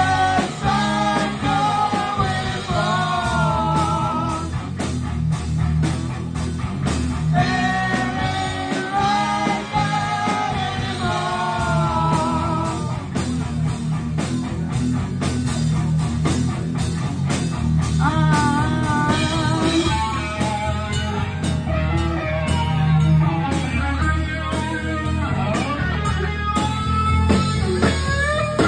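Live rock band playing an instrumental passage: electric guitar, bass guitar and drums, with a wavering lead melody that drops out and returns in stretches.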